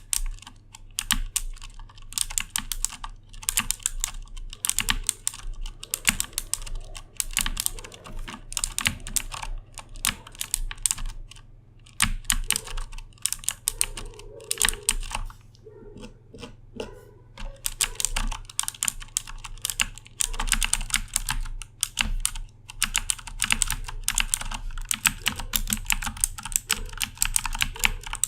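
Continuous fast typing on a Corsair K70 mechanical keyboard with Cherry MX Blue switches: a dense run of sharp clicks, with a couple of short pauses.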